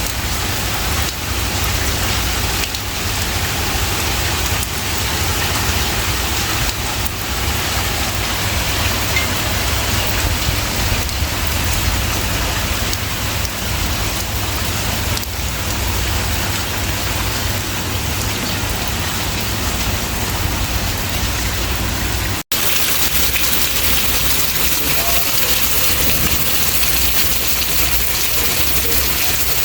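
Steady rain falling, an even hiss of drops, with a brief break about three-quarters of the way through before it carries on.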